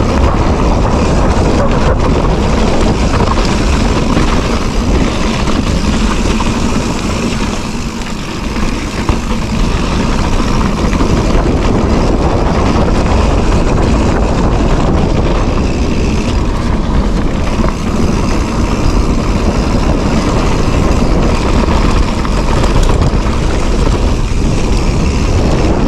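Loud, steady wind rush on the microphone of a handlebar-mounted phone as a mountain bike rolls down a dirt singletrack, mixed with the low rumble of the bike over the trail. It eases briefly about eight seconds in.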